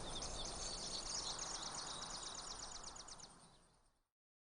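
Songbirds chirping and trilling in quick high notes over a steady outdoor hiss, fading out to silence about four seconds in.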